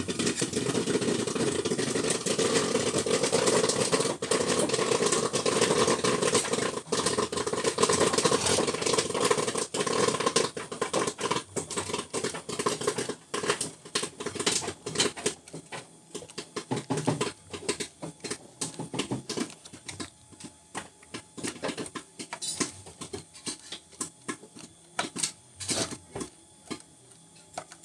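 An engine runs steadily through the first half and fades out about halfway. Then come many small metallic clicks and taps as a bolt is fitted with a washer and nut and turned with a screwdriver.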